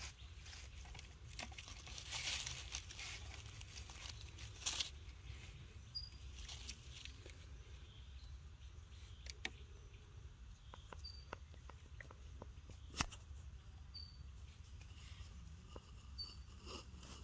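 Faint rustling and crinkling from a baby monkey handling a banana while lying on sand and dry leaves, busiest in the first few seconds, then sparse small clicks.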